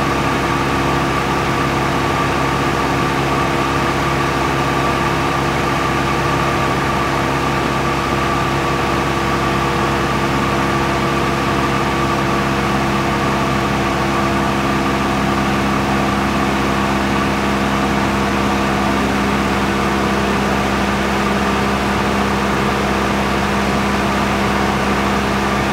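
Steady engine drone from a small aircraft: an even hum of several held tones that never changes in pitch or level.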